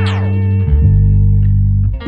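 Background music in a break without drums: held bass and instrument notes, the bass note changing once, with a falling sweep just at the start.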